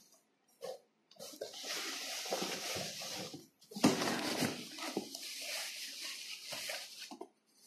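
Plastic wrapping and cardboard rustling and crinkling as a box is unpacked by hand, in two long stretches with a brief pause about halfway through.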